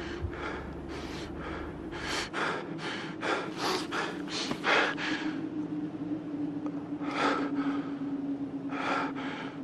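A man panting and gasping for breath, quick hard breaths for the first five seconds, then two more gasps near the end. A low steady drone sits under it.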